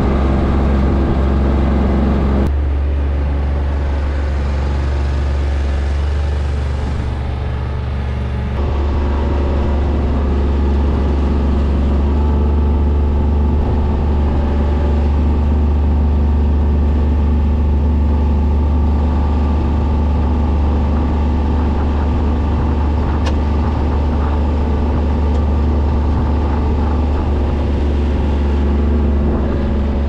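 Skid-steer loader's engine running steadily under load, its pitch and level shifting about two and a half seconds in and again about eight seconds in as the machine drives and raises its loader.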